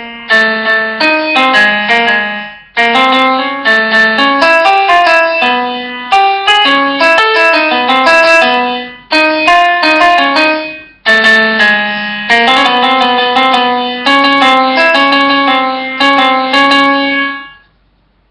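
Background music played on a keyboard, with struck notes in short melodic phrases and brief pauses between them. It dies away to silence just before the end.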